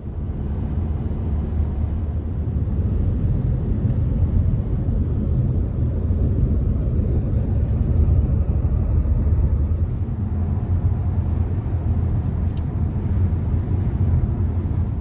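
Steady rumble of a car on the move, road and wind noise heard from inside the cabin.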